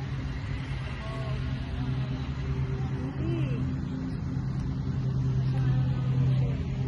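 Steady low engine hum with an even pitch, swelling slightly near the end, with faint voices in the background.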